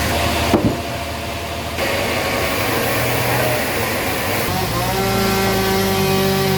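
Sawmill machinery running steadily with an engine-like hum, and a single sharp knock about half a second in. About four and a half seconds in, the hum shifts abruptly to a different set of steady tones.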